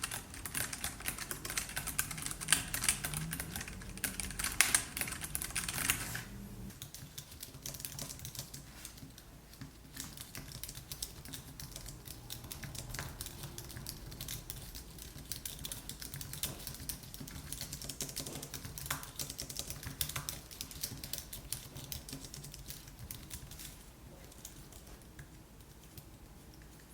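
Typing on a computer keyboard: a dense run of loud, bright key clicks for about the first six seconds, then softer, sparser keystrokes that carry on to the end.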